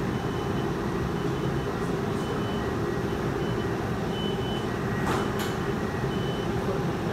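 Inside a moving streetcar: the steady running noise of the car rolling along, with a faint high tone that cuts in and out. Two short clicks come about five seconds in.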